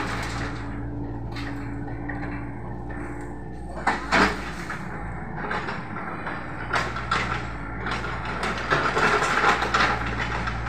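Mini excavator's diesel engine running steadily while the machine slews and works, with a couple of sharp metallic knocks about four seconds in and rough scraping near the end as the bucket digs into the soil.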